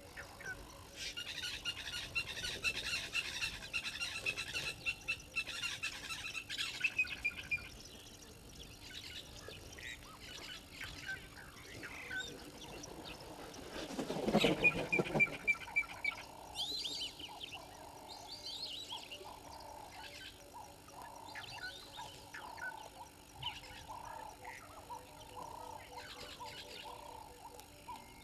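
Wild birds chirping and calling in the bush, with a repeated low call through the second half. About halfway there is a louder rustling burst of a second or so.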